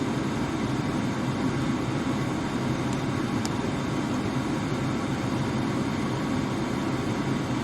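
Steady low hum of a car, heard from inside its cabin.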